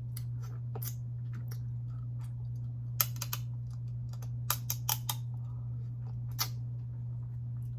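Cold blue crab shells snapping and clicking as they are picked apart by hand: scattered sharp clicks, with a cluster about three seconds in and another around five seconds, over a steady low hum.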